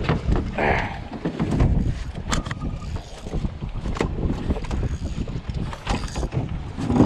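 Wind buffeting the microphone, with cloth rubbing and brushing over it, and scattered knocks and bumps against the boat.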